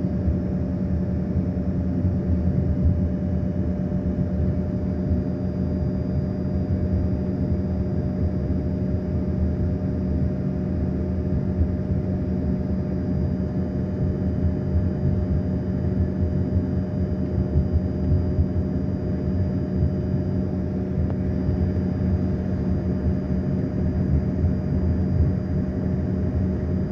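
Steady drone of an airliner in flight, heard from inside the passenger cabin: an even engine and airflow rumble with a few steady hum tones over it.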